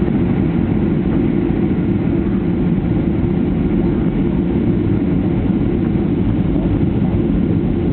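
Steady low-pitched cabin noise inside a jet airliner in flight on approach: engine and airflow noise, loud and unchanging.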